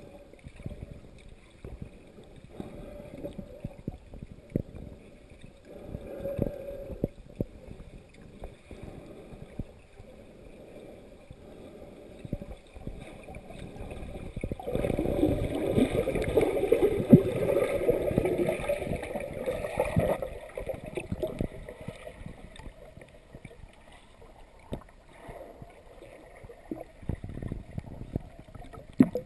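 Muffled water sound heard from underwater through a camera's waterproof housing, with scattered small clicks and pops. About halfway through, a louder rush of splashing and bubbles lasts about five seconds as a snorkeler duck-dives from the surface, then it falls back to the quiet muffled background.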